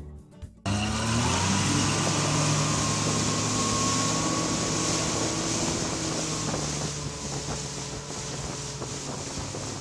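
Honda 115 outboard engine running with the pontoon boat under way, its steady drone mixed with a rush of wind and water noise. It cuts in suddenly just under a second in, rises a little in pitch at first, then eases slightly in level.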